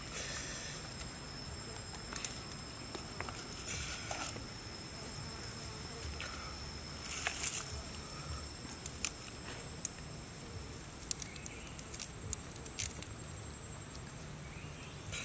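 Forest insects droning as two steady high-pitched tones, one of which drops out about two-thirds of the way through. Scattered rustles and soft taps of hands handling leafy greens and raw salmon slices come through over it, with a short cluster just past the middle.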